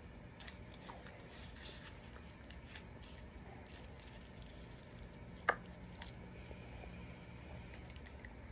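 Faint handling of a roll of Choward's Violet mints: quiet rustling of the paper-and-foil wrapper as it is peeled back, with two small sharp clicks, one about a second in and one about five and a half seconds in.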